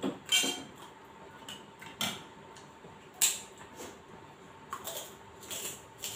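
Eating sounds at a meal: about five short, sharp crunches and clicks from food and a spoon on a plate, spread a second or so apart, the loudest about three seconds in, over a faint steady hum.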